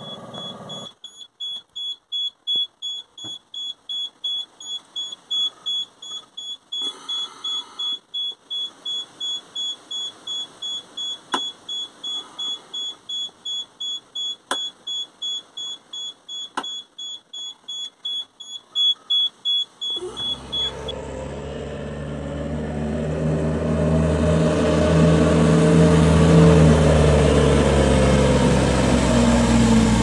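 A high electronic beeper in a backhoe cab sounding about twice a second, with a few sharp clicks of the smooth-ride (SRS) toggle switch being flicked. About twenty seconds in, it gives way to the JCB 3CX backhoe loader's diesel engine running as the machine drives closer, getting louder, its pitch shifting near the end.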